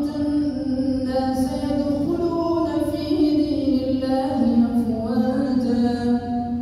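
An imam chanting Quran recitation aloud during the standing part of the maghrib prayer: one voice in long, held, melodic notes sliding slowly between pitches.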